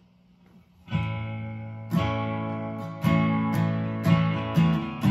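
Acoustic guitar strumming chords, starting about a second in. Each strong strum comes about once a second and is left to ring, with a couple of quicker strums near the end.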